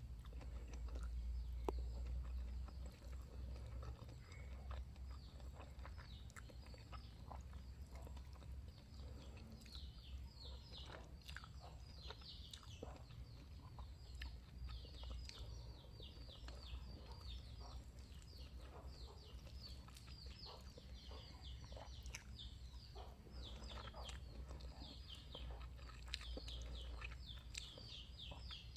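Birds chirping busily in the background. The calls are short, high, downward-sliding notes, several a second, that grow thick from about ten seconds in. Under them are scattered faint clicks and a steady low hum.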